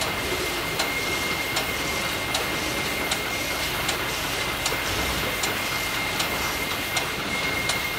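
Ship's engine-room machinery running: a steady din with a regular tick a little more than once a second and a thin steady high whine.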